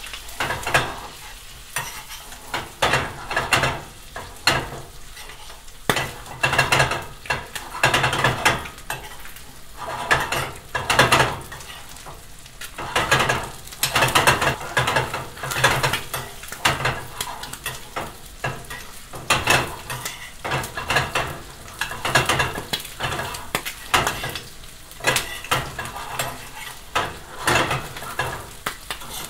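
Butter sizzling hard in a frying pan around isaki (threeline grunt) fillets, corn and bacon. It surges about once a second as a metal spoon scoops the hot butter from the tilted pan and pours it back over the fish, scraping against the pan: basting to brown a meunière.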